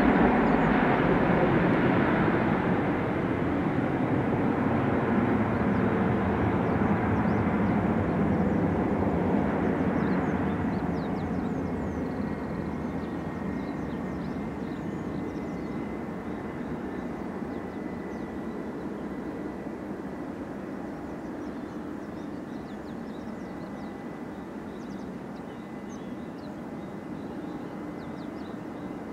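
Jet airliner noise on a landing approach: a broad roar fades away over the first ten seconds or so. About halfway in, a faint steady engine whine comes in over a quieter background.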